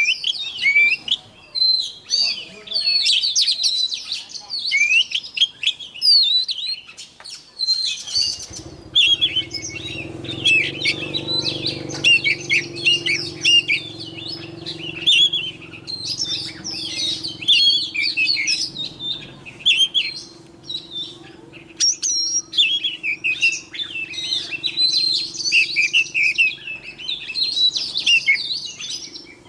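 Oriental magpie-robin singing a long, varied string of sweet whistles and chattering phrases, with short breaks between bouts. From about eight seconds in, a low steady hum sits underneath the song.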